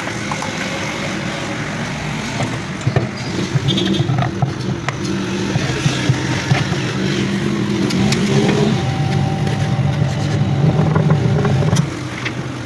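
A motor running with a steady hum that grows slowly louder, then drops off sharply near the end.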